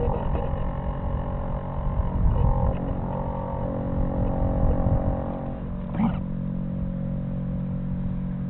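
An engine running steady and droning. About six seconds in, its higher notes drop away and a lower, even hum carries on.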